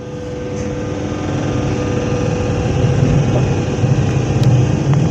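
SNCF Z2N double-deck electric multiple unit Z 20821 running: a steady electrical hum over a low rumble that builds up over the first couple of seconds.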